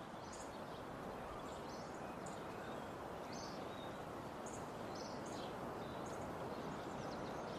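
Steady, quiet background ambience, a soft even hiss, with about a dozen short, faint high chirps scattered through it.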